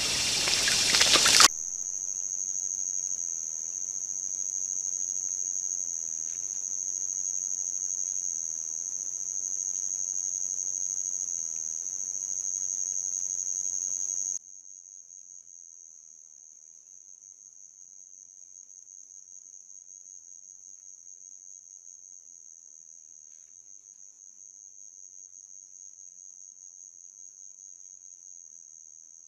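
Water running over a flooded trail, cut off about a second and a half in by a steady, high-pitched chorus of night insects that runs on unbroken, dropping to a quieter level about halfway through.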